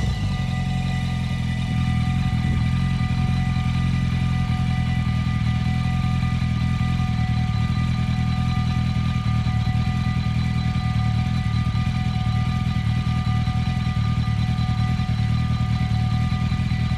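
Level-crossing warning bell ringing continuously, heard as a steady set of high ringing tones, over a steady low engine-like hum.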